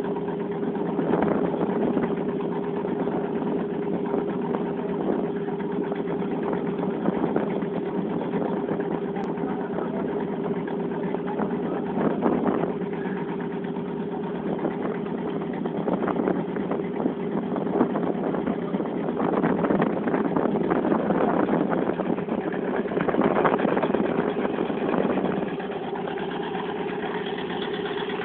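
Fishing boat's engine running steadily with a constant hum, its level rising and falling a little at times.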